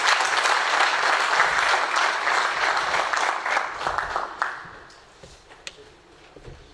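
An audience clapping, dense and steady, then dying away about four to five seconds in.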